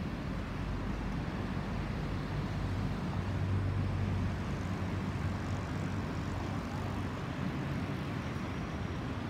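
Distant low rumble of an Airbus A330-343's Rolls-Royce Trent 700 jet engines passing high overhead, swelling slightly three to four seconds in and otherwise steady.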